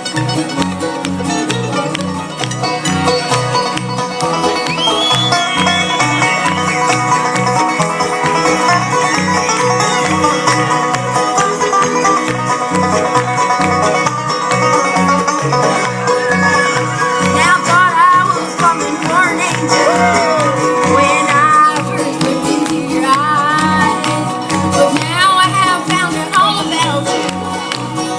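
Bluegrass band playing live, an instrumental break with banjo and a gliding fiddle line over a steady bass beat.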